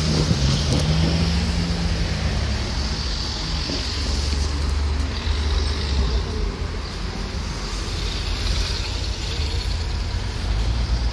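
Steady low rumble of road traffic, with an engine's hum in the first two or three seconds.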